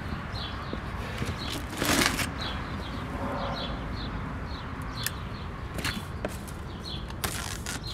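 Hands handling a large cardboard wheel box and cutting its packing tape, with crackly scraping and clicks near the end. A small bird chirps about twice a second in the background, and a brief whoosh about two seconds in is the loudest thing.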